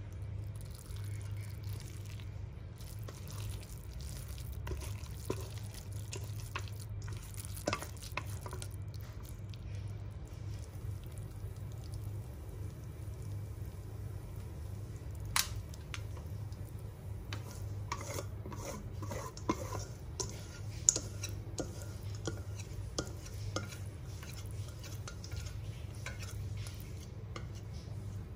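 A utensil stirring and scraping in a bowl, with scattered clinks and taps that come thickest a little past the middle. A steady low hum runs underneath.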